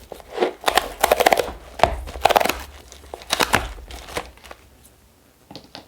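A cardboard stationery subscription box and its paper packing being opened and handled: irregular rustling and crinkling in a run of bursts over the first four seconds, dying down to faint handling near the end.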